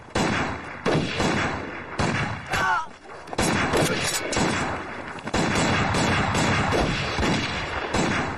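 Gunfire in a battle: an irregular run of many shots, several a second, with a short lull about three seconds in.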